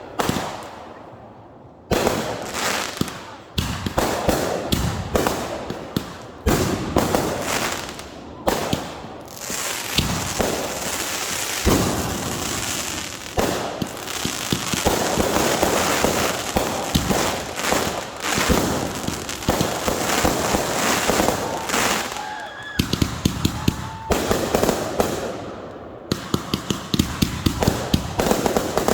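Fireworks going off: a string of sharp bangs, each trailed by crackling, building to a dense crackle through the middle, with a couple of short whistles and then a fast run of pops near the end.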